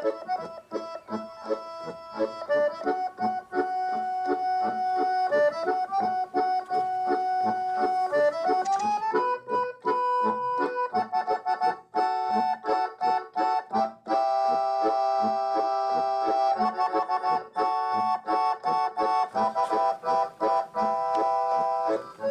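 Background instrumental music: held chords that change every second or two over a steady beat.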